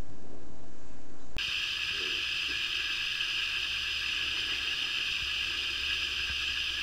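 Steady hissing background noise that changes abruptly in character about a second and a half in, with no clear animal sound.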